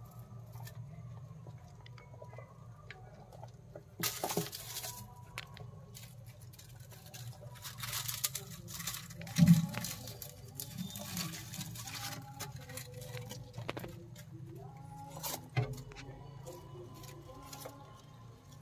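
White pet rats scurrying and rustling over newspaper lining their glass tank: a run of small scratchy pattering and crinkling, with a few louder rustles about 4, 8, 9 and 15 seconds in. A steady low hum runs underneath.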